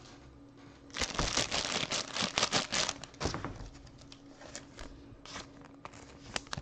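Foil trading-card pack wrapper crinkling and tearing open for about two seconds, then scattered light rustles and clicks as the wrapper and card are handled.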